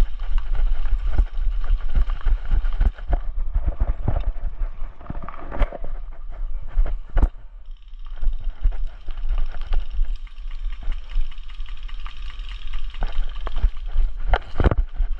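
Running footsteps on the ground with gear jostling against the body-worn camera, a quick even rhythm of thuds over a low rumble of movement. It eases off briefly about eight seconds in, then picks up again, with a few sharp clicks along the way.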